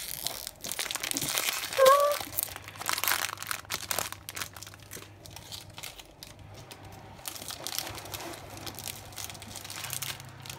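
Plastic wrapper crinkling and crackling irregularly as hands unwrap and handle a roll of ready-rolled puff pastry.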